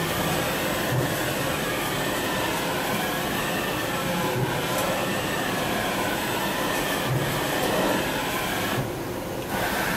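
Hardinge VMC-1000-II vertical machining center running, its table traversing on the axis drives with a steady mechanical whirr and rumble and a faint wavering whine. The noise dips briefly near the end, then resumes.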